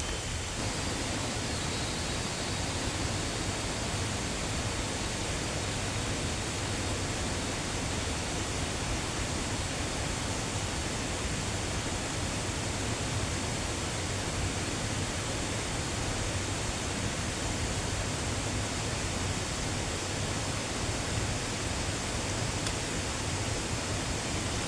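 Steady, unbroken rushing of running water.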